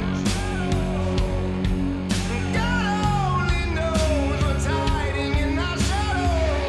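Outro music: a rock song with a singing voice over a regular drum beat and bass.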